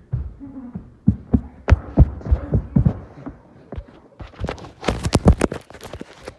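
Irregular low thumps and knocks from handling a boxed toy, with a quick cluster of sharp plastic clicks and crackles about four to five and a half seconds in, as the toy is worked loose from its packaging.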